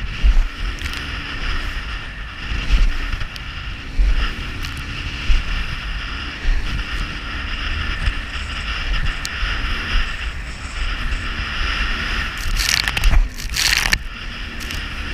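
Outboard engine of a Gemini GRX420 rescue RIB running steadily under way, with wind buffeting the microphone and the hull thumping on the chop. Spray hisses over the bow twice near the end.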